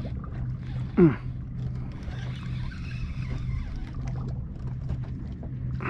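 Minn Kota Terrova electric trolling motor humming steadily as it holds the boat in spot-lock, with a short falling vocal exclamation about a second in.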